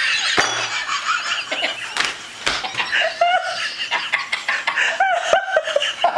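A woman laughing hard in short repeated bursts, with a toddler's high-pitched squeals and a few sharp claps.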